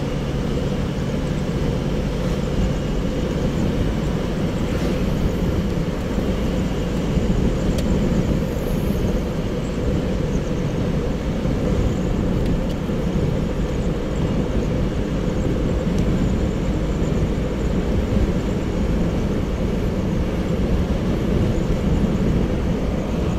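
Steady engine and road noise of a moving car, heard from inside the cabin, a continuous low rumble.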